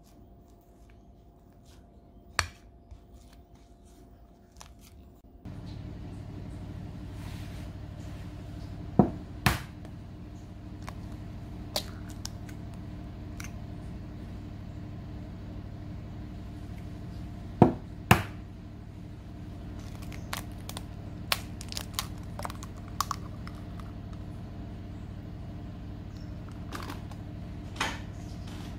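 Eggs cracked against the rim of a mixing bowl: two pairs of sharp knocks about half a second apart, the first pair about nine seconds in and the second about nine seconds later. A steady low hum starts about five seconds in and runs beneath, with scattered lighter clicks.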